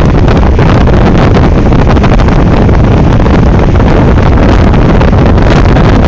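Strong wind buffeting the microphone: a loud, continuous low rumble with rapid gusty thumps, from gale-force wind on the beach.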